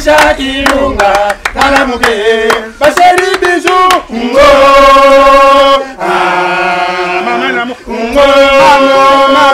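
A group of voices chanting and singing together, with hand claps through the first few seconds, then long held sung notes in the second half.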